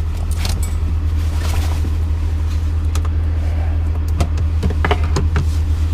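A steady, loud low hum with a few scattered clicks and light knocks.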